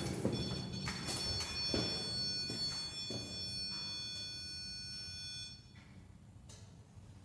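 REM pod ghost-hunting alarm going off: a faint high electronic tone of several held pitches that cuts off abruptly about five and a half seconds in, with a few soft footsteps or knocks under it.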